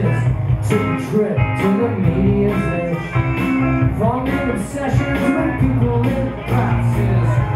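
Live rock song: a man singing over an electric guitar, with a steady beat.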